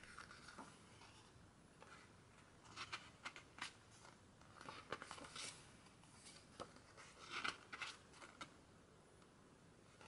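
Glossy pages of a photobook being turned and handled by hand: paper rustling and crisp flicks in three short clusters, about three, five and seven and a half seconds in.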